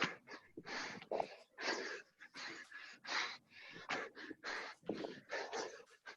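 Hard, rapid breathing from exertion during burpees: gasping breaths in and out, about two a second.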